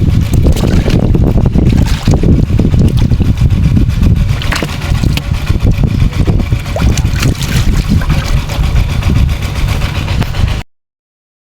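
Engine-driven water pump running steadily, draining a pond, with wind buffeting the microphone. The sound cuts off suddenly near the end.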